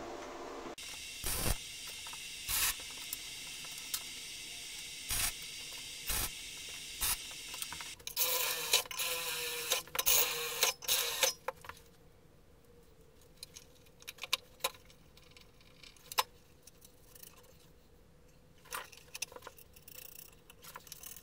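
MAG welding: a steady crackling hiss broken by several loud cracks as the arc is struck and stopped. About eight seconds in, a cordless drill drives screws into a wooden board for about three seconds. After that come scattered light clicks and metal clinks of parts being handled.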